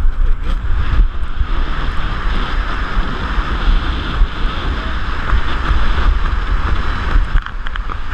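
Airflow buffeting the microphone of a body-mounted camera during a parachute descent under canopy: a loud, steady rush with a heavy low rumble and gusty swells.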